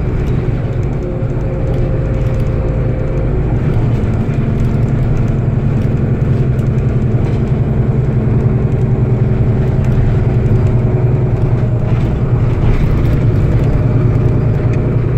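Solaris Urbino 12 city bus driving, heard from inside the passenger cabin: a steady engine and road hum that grows a little louder about four seconds in.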